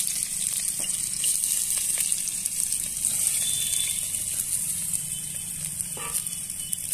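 Sliced onions and green chillies sizzling in hot oil in a steel karahi: a steady high hiss with a few faint crackles.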